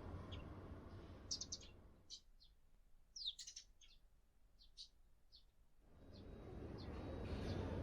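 Small birds chirping in short, high notes, with a quick cluster of chirps about three seconds in. Behind them is a faint, steady background noise that drops away for a few seconds in the middle.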